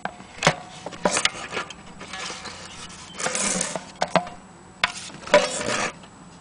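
Handling noise of an old bowl-back mandolin: irregular clicks and knocks as its wooden body is touched and turned, with two stretches of rubbing, one around the middle and one near the end. A few knocks leave a brief faint ring.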